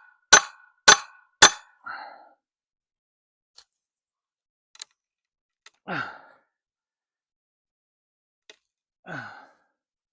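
Three sharp metal-on-metal blows, about two a second, end about a second and a half in: a hammer striking while boards are being pried off an old wooden corral. Later come two short creaks, each falling in pitch, as boards and nails are worked loose.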